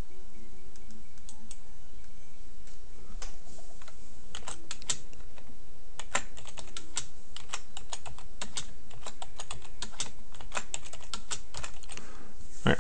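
Typing on a computer keyboard: a few scattered key clicks, then a steady run of keystrokes from about three seconds in until near the end.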